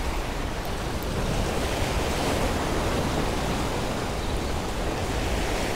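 Surf breaking and washing over the stone blocks of a jetty: a steady rushing that swells a little in the middle.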